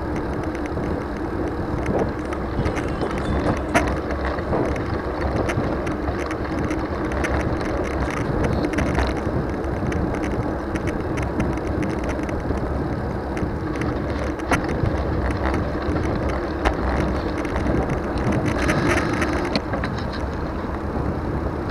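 Steady wind rush on the microphone with tyre and road noise from a moving bicycle, broken by a few light clicks.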